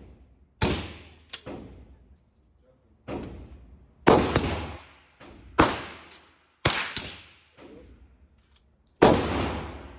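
HK45 Compact Tactical .45 ACP pistol being fired: about eight shots at uneven intervals of about one to two seconds, each with a sharp crack and a reverberating tail.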